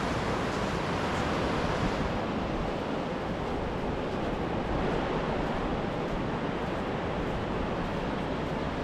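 Steady wash of small surf breaking on a shallow sandy beach, with a low rumble of wind on the microphone.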